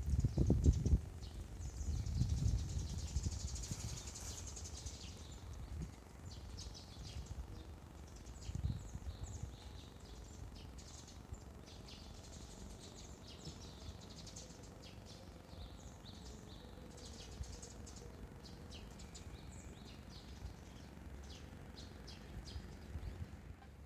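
Small birds chirping in short, scattered calls, over a low rumbling noise that is loudest in the first few seconds and then fades.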